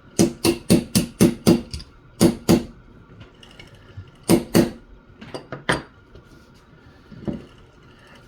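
Small hammer tapping a retaining pin into the front ejector-rod catch under a Smith & Wesson Model 629 revolver's barrel: a quick run of about six sharp taps, then two pairs of harder ones, then a few lighter taps.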